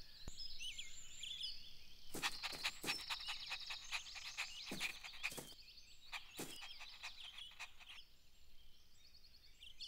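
Faint outdoor nature ambience: high, chirping birdsong, with a run of quick, sharp clicking calls from about two seconds in to past the middle.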